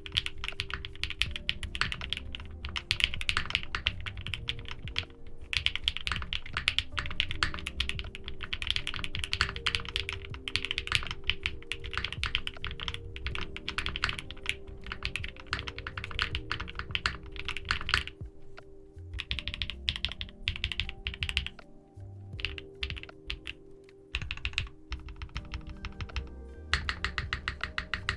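Fast typing on a QK60 custom mechanical keyboard with lubed Sarokeys BSUN BCP switches and GMK keycaps: a dense, quick run of keystrokes that thins to scattered strokes about two-thirds of the way through, then picks up again near the end. Soft background music plays underneath.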